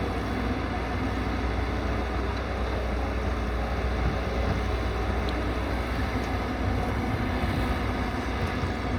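Excavator engine running steadily, a continuous low drone.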